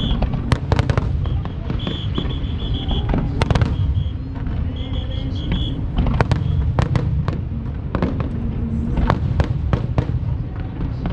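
Fireworks display: many sharp cracks and bangs from bursting shells over a continuous low rumble.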